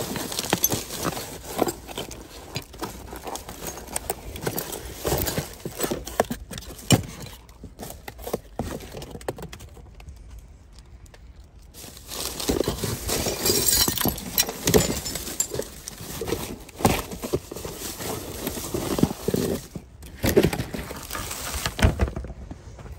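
Gloved hands rummaging through cardboard boxes and plastic bags: crinkling plastic, scraping cardboard and irregular knocks, with a quieter stretch about ten seconds in.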